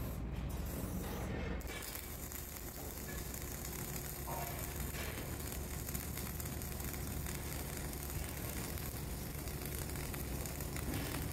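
Flux-cored arc welding: a steady crackling hiss of the arc that starts about two seconds in and runs on evenly.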